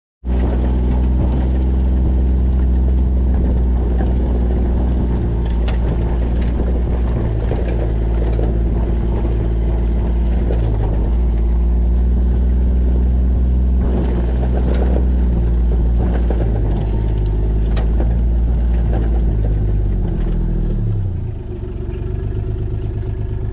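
Vehicle engine running steadily with a low rumble, its pitch sliding down about twenty seconds in as it slows.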